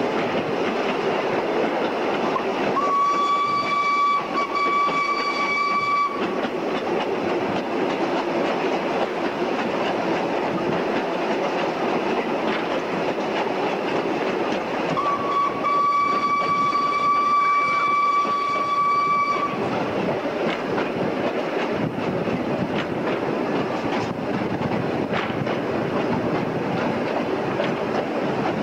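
Narrow-gauge train running, heard from a carriage: a steady rumble with wheel clatter on the rails. The George England 0-4-0 steam locomotive's whistle sounds twice in long steady blasts, first about three seconds in and again about fifteen seconds in.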